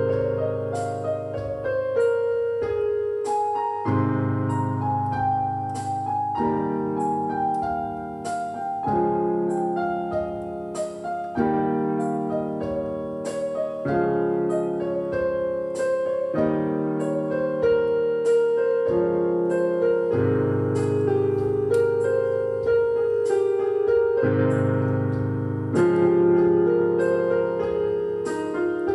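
Background solo piano music: a slow piece of broken chords, with a new bass chord every two to three seconds.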